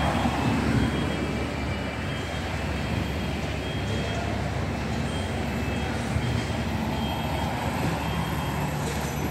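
City street traffic: cars driving through an intersection over a steady rumble of road noise.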